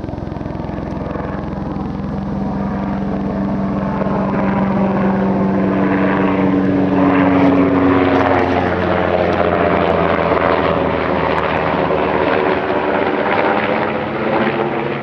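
Low-flying aircraft passing overhead: engine drone growing louder to a peak about halfway through, then fading, its pitch dropping slightly as it goes by.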